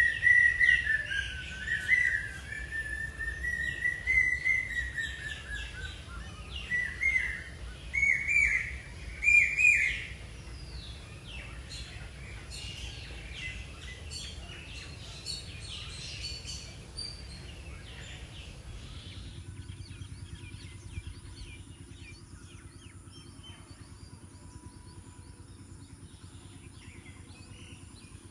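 Rural birdsong: a long wavering whistle, then a run of short rising whistled calls, then many quick bird chirps. About two-thirds of the way in, the sound changes to a steady high insect drone with only a few scattered chirps.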